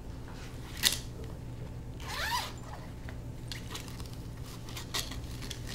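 A padded nylon equipment bag being handled: a sharp click about a second in, then a short zipper pull about two seconds in, followed by a few light ticks as the lid flap is lifted.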